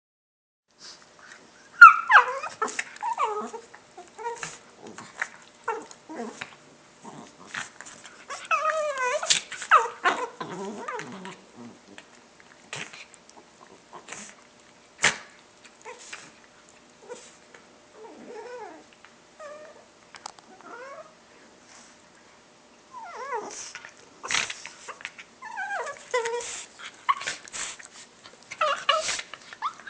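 A pet dog making weird vocal noises: whining and yipping calls that slide up and down in pitch, in bouts with pauses between them.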